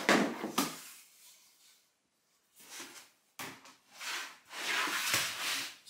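Dryback luxury vinyl planks rubbing and sliding as they are set down onto the glued floor and pressed into place by hand. A scraping burst comes at the start, then after a short quiet spell several more short scrapes follow.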